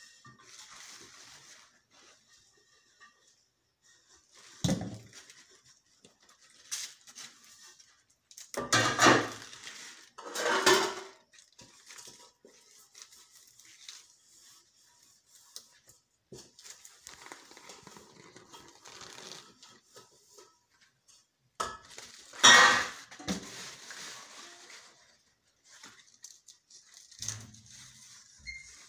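Pumpkin stems being snapped and their stringy outer skin peeled off by hand, with intermittent crisp snapping and tearing over leaf rustling. There are louder snaps about five, nine, eleven and twenty-two seconds in.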